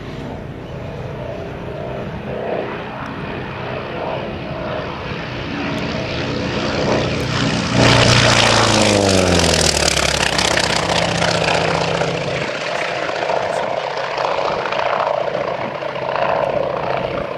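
Grumman FM-2 Wildcat's Wright R-1820 nine-cylinder radial engine and propeller in a low fly-past: the engine note grows louder as the plane approaches, is loudest about eight seconds in, then falls in pitch as it passes and slowly fades as it flies away.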